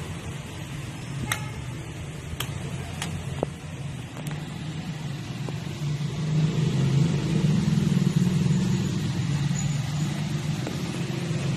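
Steady low rumble, like a motor running, swelling louder past the middle, with a few faint sharp clicks in the first four seconds.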